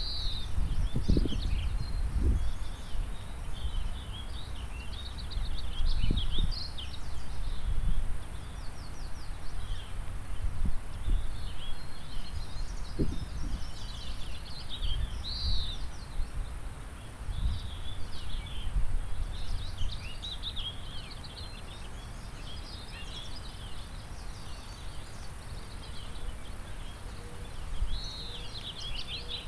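Several birds singing and calling with short chirps and trills, over a steady faint rush of river water. Wind buffets the microphone in low gusting rumbles, strongest in the first few seconds.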